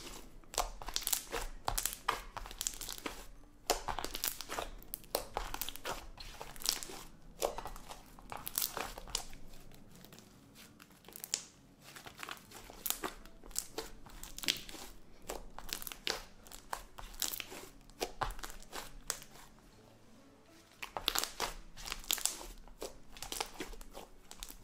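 Glue-based slime with white Daiso clay mixed in, kneaded, squeezed and stretched by hand, giving irregular wet crackles and little pops. It goes quieter for a moment about ten seconds in and again near twenty seconds.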